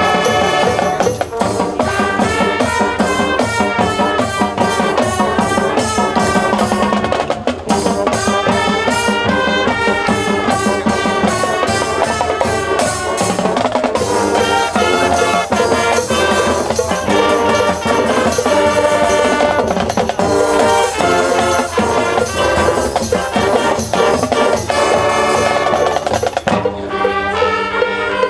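High school marching band playing a rock-song arrangement: brass over a drumline and front-ensemble percussion, with steady drum hits throughout. Near the end the percussion drops away and the horns hold sustained chords.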